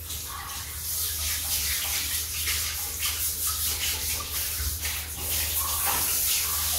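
Water spraying from a hose's shower nozzle onto a Rottweiler puppy's wet coat and splashing onto the plastic floor mats: a steady hiss of running water, with a low hum underneath.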